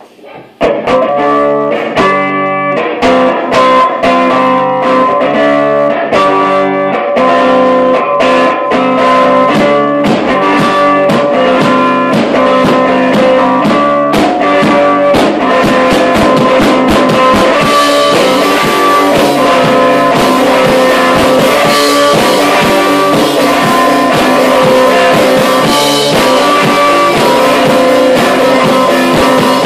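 A small rock band playing live: electric guitars in a bluesy rock jam over a Mapex drum kit, starting about half a second in, the drumming growing busier as it goes.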